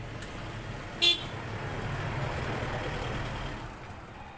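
A short horn toot about a second in, then a vehicle passing on the road, its noise swelling and fading away near the end.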